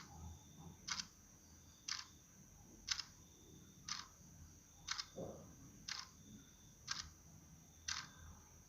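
Steady ticking: sharp clicks evenly spaced about once a second, like a clock, over a faint high steady tone.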